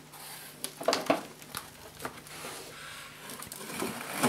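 Flaps of an old cardboard box being pulled open by hand: scattered rustles and scrapes of cardboard, with a louder sharp crack near the end.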